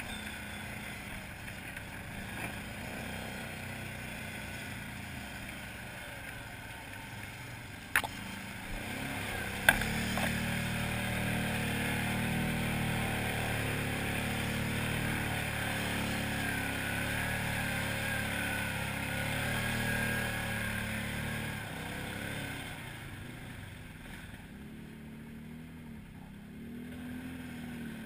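Arctic Cat 500 ATV engine running under throttle through grass and mud, with two sharp knocks about 8 and 10 seconds in. From about ten seconds in the engine works harder and louder, its pitch wavering with the throttle. It eases off a few seconds before the end, then picks up again.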